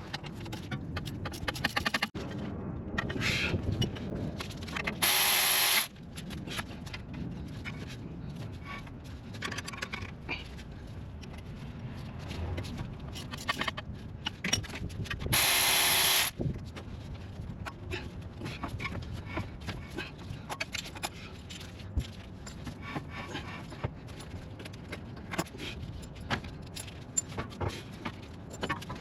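Car repair work in a workshop: scattered clinks, knocks and scrapes of tools and parts, with two short, loud hissing bursts about five and fifteen seconds in.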